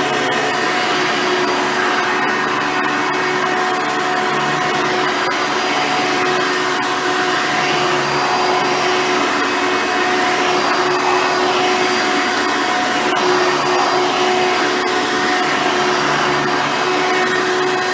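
Hoover Soft & Light Supreme upright vacuum, with its 7-amp motor and 7-blade fan, running steadily while cleaning, a constant rush of air with a steady motor whine.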